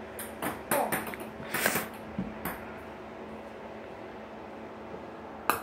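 Ping pong ball bouncing on a hardwood floor: a run of light, sharp clicks in the first two and a half seconds, then one sharp click near the end, over a faint steady hum.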